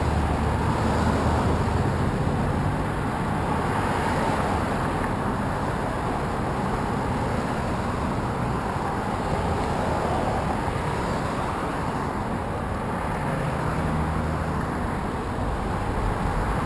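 Road traffic driving past on a busy multi-lane road: a steady rush of tyres and engines, with the low hum of a passing vehicle louder near the start and again toward the end.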